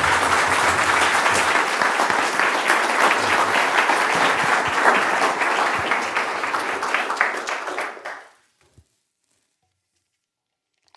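Audience applauding: dense clapping that dies away about eight seconds in, then near silence.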